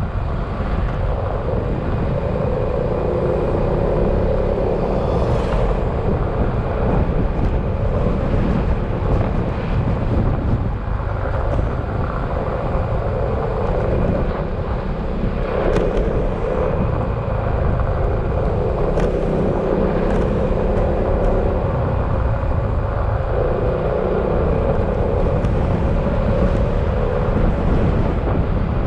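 Yamaha XMAX scooter's single-cylinder four-stroke engine running under way, its note swelling and easing a little with the throttle, over a steady low rumble of wind and road noise at the onboard microphone.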